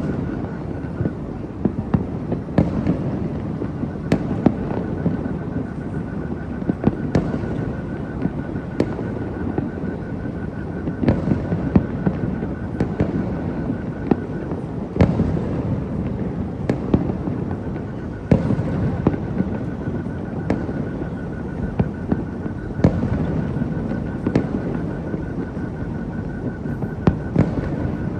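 Fireworks display: irregular sharp bangs of bursting aerial shells every one to three seconds, over a continuous rumble and crackle.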